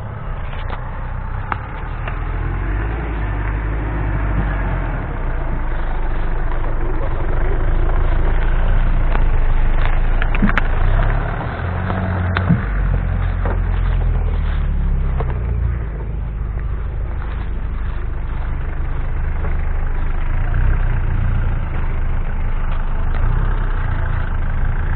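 Four-wheel-drive pickup truck's engine running as it crawls through mud, its sound swelling and easing with the throttle, with a few sharp knocks in the middle.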